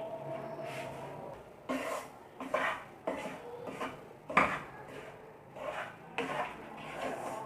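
A spatula scraping and knocking against a pan as ground flaxseed is stirred and roasted in ghee. The scrapes and clinks come in separate strokes, about half a dozen, with one sharper knock in the middle.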